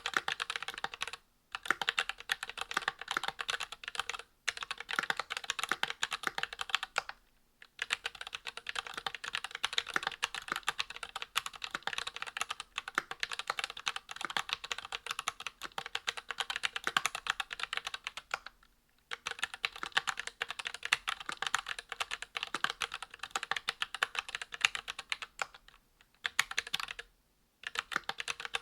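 Typing on a Monstargear XO V2 aluminium mechanical keyboard with a brass plate, lubed ZealPC Zealios V2 62g tactile switches and GMK ABS keycaps. Rapid, continuous keystrokes come in long runs, broken by a few short pauses.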